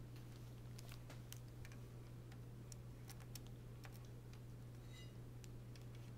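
Faint, irregular small clicks and taps of laptop parts being handled during a keyboard replacement, with a brief light ring about five seconds in, over a steady low hum.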